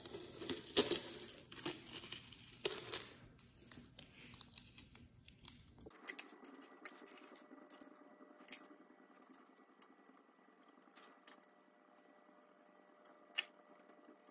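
Masking tape being peeled off a glass pane in a run of ripping tears over the first few seconds. After that it is quieter, with a few faint sharp clicks as small metal hinges are handled against a wooden frame.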